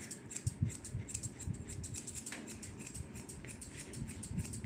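Curved chunker shears snipping through a Shih Tzu's head fur: a quick, irregular run of crisp snips, several a second.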